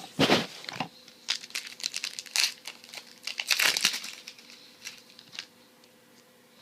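Foil trading-card pack wrapper being torn open and crinkled by hand, in irregular bursts of crackling that thin out after about four seconds.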